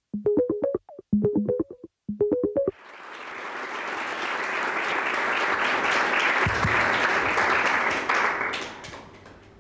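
A short musical jingle in three quick runs of notes, followed by audience applause that builds up and then fades out near the end.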